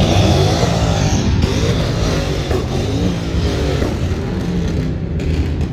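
A car engine being revved hard several times, its pitch climbing and falling with each blip of the throttle through a loud exhaust. It eases off near the end.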